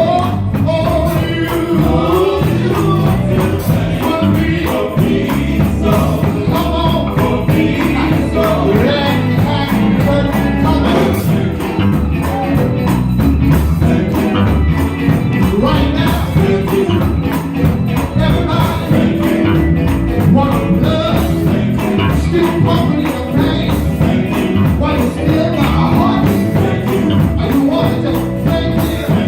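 Live gospel quartet music: voices singing over electric guitar, bass guitar and keyboards, with a steady beat.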